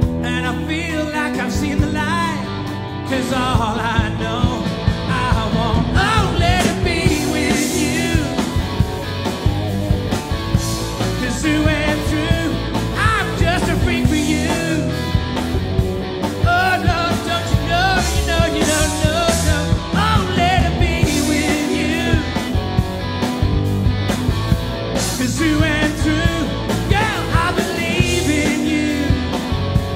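Live rock band playing: drums keeping a steady beat under bass and electric guitar, with a wavering, bending lead melody on top.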